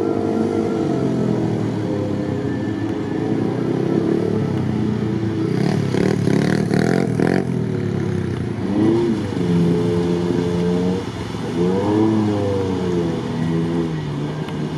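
Engine of an off-road SUV wading through deep water, running under load with its pitch rising and falling as the driver works the throttle. A brief rush of noise comes about six seconds in.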